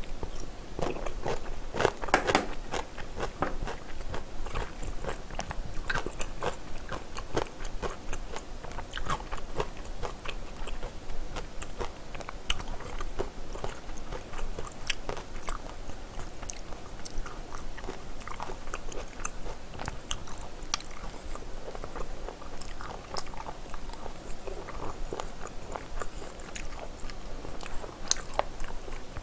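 A person chewing and biting food close to the microphone, with many short crunches and clicks scattered throughout.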